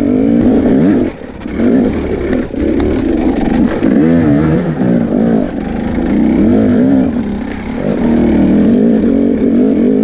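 Off-road dirt bike engine revving hard up and down as the throttle is worked, its pitch repeatedly rising and falling, with a brief drop in engine sound about a second in.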